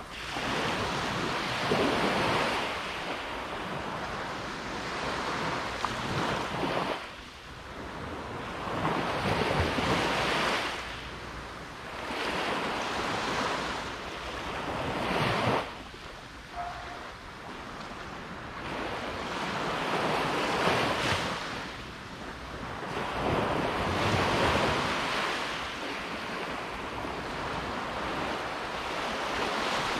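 Sea surf breaking and washing up a beach, rising in a loud rush and falling away every few seconds.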